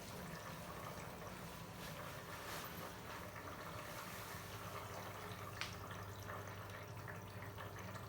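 Arçelik 3650 SJ washing machine taking in water at the start of a wash: a steady trickle of water filling the drum, with a steady low hum underneath.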